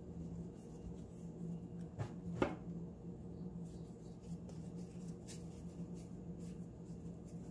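Hands rounding balls of soft pita dough on a floured countertop: faint pats and taps of dough against the counter, with two louder knocks about two seconds in, over a steady low hum.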